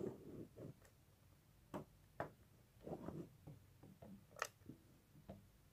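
Quiet handling noises as a plastic model horse is worked out of its boxed packaging: scattered light clicks, taps and brief rustles, with one sharper click about four and a half seconds in.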